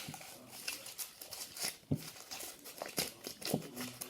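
Faint crinkling and scattered light clicks, like plastic being handled.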